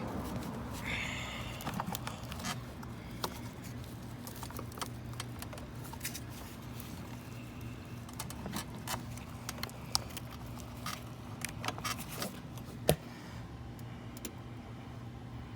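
Irregular plastic clicks, rattles and scraping as a wiring-harness connector is worked and wiggled loose from the TIPM fuse-box module of a 2013 Chrysler Town & Country, with one sharper snap about three-quarters of the way through.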